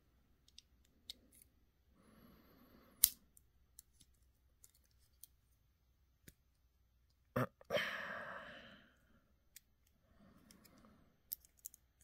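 Victorinox Yeoman Swiss Army knife being handled: small metallic clicks of its tools moving against the springs, with one sharp snap about three seconds in. A double click at about seven seconds is followed by a short rustling rattle that fades over a second or so.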